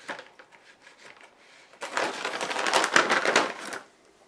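A dense, rapid crinkling rattle lasting about two seconds, starting about two seconds in, with a few small ticks before it.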